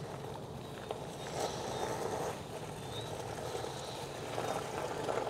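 Steady rolling noise of an electric Onewheel board riding over a rough street: tyre and hub-motor noise with no speech.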